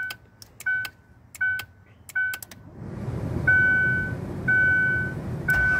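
Aftermarket remote-start system on a 2001 Ford Windstar: four short siren chirps about two-thirds of a second apart, each with a relay click. About three seconds in, the engine cranks, starts and idles, while a beep repeats about once a second.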